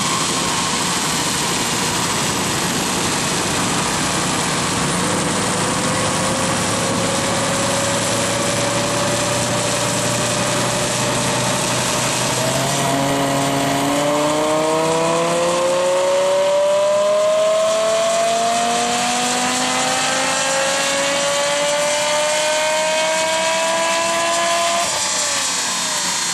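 BMW M5's 5.0-litre V10, Dinan-tuned, under full throttle on a chassis dyno: the note climbs steadily in pitch, steps about halfway through, then climbs again more steeply until the throttle is lifted near the end.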